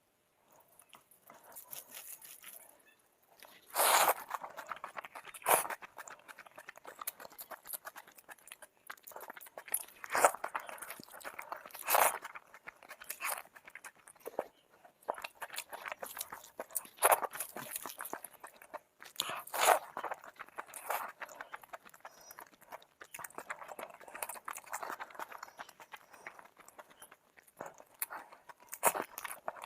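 Close-miked eating: a person chewing food, with sharp crunchy bites every few seconds, the loudest about four seconds in.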